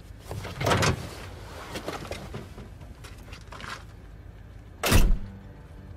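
Car door of an old station wagon being worked: a sharp clunk about a second in as the door is opened, a few soft shuffles and steps, then the door slammed shut with a heavy thud about five seconds in.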